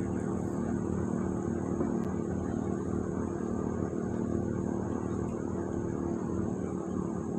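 A small engine running steadily with an even drone, its pitch holding level throughout.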